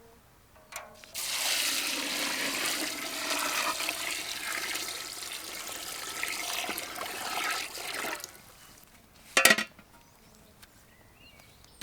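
Water poured or rushing out in a steady gush for about seven seconds, then stopping, followed by a single sharp knock.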